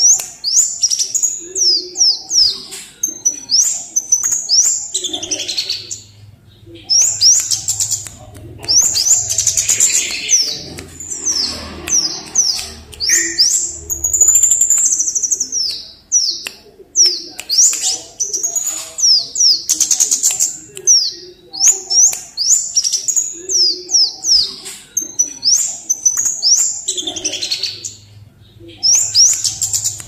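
Scarlet-headed flowerpecker (cabe jawa) calling in rapid runs of very high, thin chips and quick sweeping notes, in bursts of several seconds with short pauses between them.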